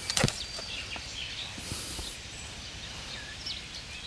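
Small birds chirping with short calls scattered throughout, over a steady background hiss. A couple of sharp knocks come right at the start, and a brief high hiss about two seconds in.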